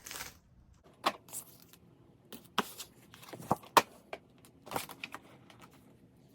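Cut pieces being popped out of a Cricut-cut sheet by hand: a run of sharp snaps and crackles, about five louder ones, with rustling of the material between them.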